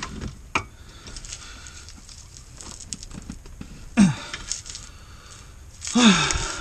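A man's short grunts of effort, twice, each falling in pitch, as he strains to tighten the front brake caliper's mounting bolts; a sharp click about half a second in.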